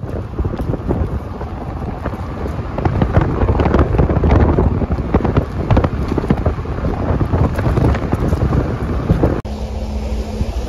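Wind buffeting the microphone: loud, gusty, crackling low-pitched noise that keeps rising and falling. A bit past nine seconds in it cuts abruptly to a quieter, steady low hum.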